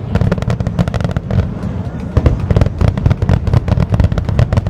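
Fireworks display going off in rapid succession: many sharp cracks each second over a continuous low rumble of bursts.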